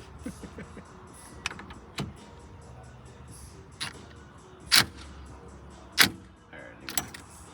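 Scattered sharp clicks and metallic knocks of hand tools and steering-wheel hub hardware being handled and fitted, about seven in all, the two loudest about a second apart past the middle.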